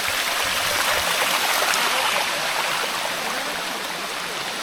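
Water running and splashing down the rocks of a cascading waterfall, a steady rushing hiss.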